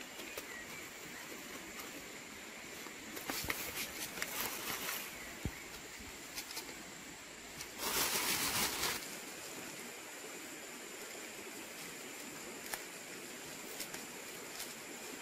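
Thin plastic bag rustling and crinkling in two bursts, about three seconds in and again about eight seconds in, as grasshoppers are worked out of it into a bamboo tube. Between the bursts a steady outdoor background with a faint high steady tone.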